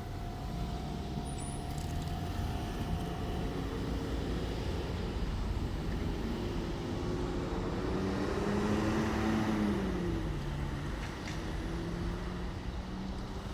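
Vehicle engines running, with an engine note that climbs and then drops in pitch around the middle.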